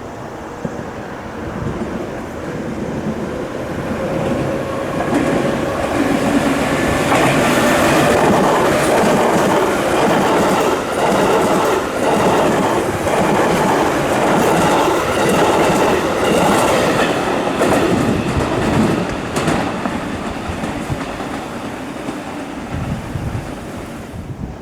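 Train running past: the rumble and clickety-clack of its wheels over the rail joints builds up, stays loud for about ten seconds, then fades.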